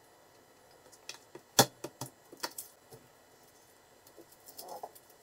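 A kitchen knife and garlic cloves clicking and clinking against a glass plate and a cutting board while the cloves are peeled. About a dozen sharp, light clicks fall in the first three seconds, the loudest about a second and a half in, with a few softer scrapes and taps near the end.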